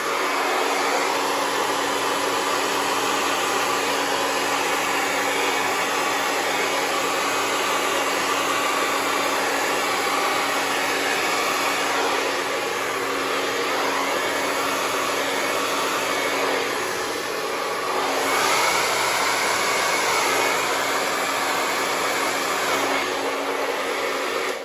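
Handheld hair dryer running on high: a steady rush of air over a low motor hum, cutting off at the very end.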